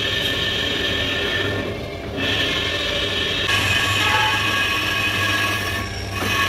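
Lathe cutting tool facing a spinning splined metal disc: a steady, high metallic screech made of several tones over a low hum. It breaks off briefly about two seconds in and again near the end.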